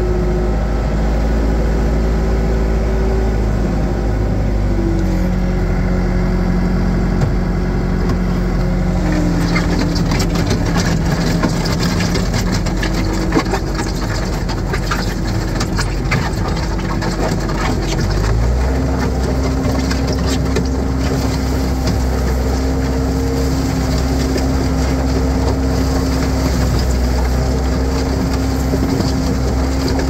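Case 450 skid steer's four-cylinder diesel engine running as the machine drives, its engine speed shifting several times, with a clear change about two-thirds of the way through. From about a third of the way in, quick clicking and rattling join the engine.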